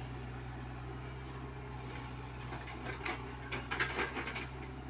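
Komatsu PC75UU mini excavator's engine running steadily, with a series of clanks and rattles of metal and gravel from about two and a half seconds in as the machine works.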